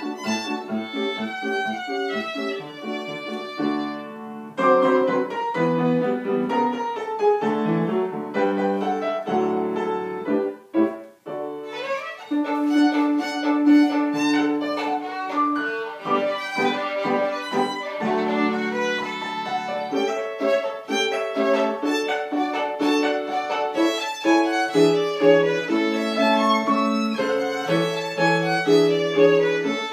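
Solo violin playing a classical piece with piano accompaniment, mixing quick runs of notes with longer held notes. The music breaks off briefly about ten seconds in, then resumes.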